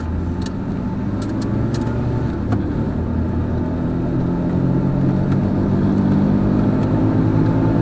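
Car engine and road noise heard from inside the cabin, a steady hum that grows gradually louder as the car pulls away and picks up speed. A few light clicks in the first couple of seconds.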